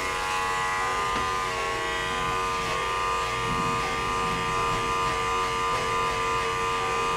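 Corded electric hair clippers running with a steady buzz while cutting hair at the side of the head.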